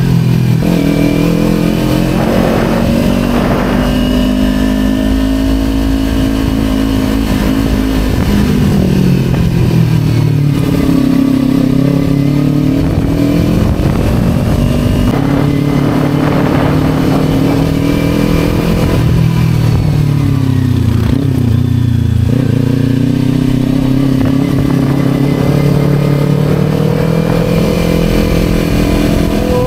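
Kawasaki Ninja 250 motorcycle engine running on the move. Its pitch holds, eases down about eight seconds in and again around twenty seconds in, and climbs back each time as the bike accelerates.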